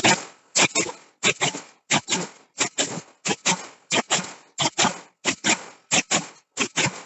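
Forging hammer striking a steel billet in a quick series of hard blows, about three a second and often in close pairs, each dying away before the next.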